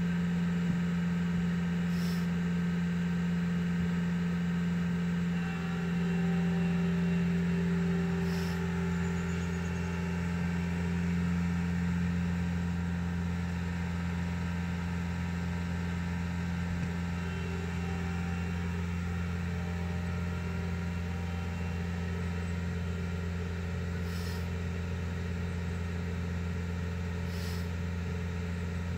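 A vehicle engine idling steadily, a low even hum heard from inside a car cabin.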